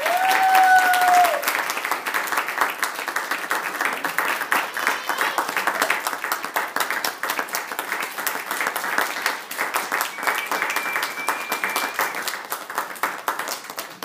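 Audience applauding, with one long whoop of a cheer in the first second or so. The clapping eases off near the end.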